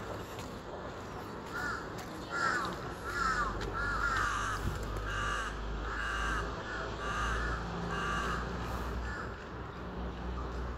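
A crow cawing repeatedly, about ten caws a little under a second apart, the first few falling in pitch, stopping near the end. A low, steady rumble runs underneath.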